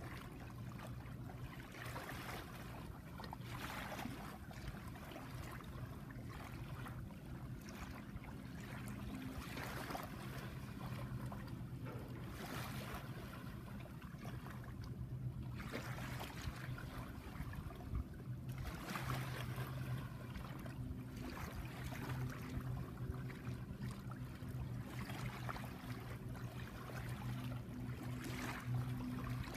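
Shallow tidal water lapping over a sandy shore, a soft wash every two to three seconds, over a steady low hum.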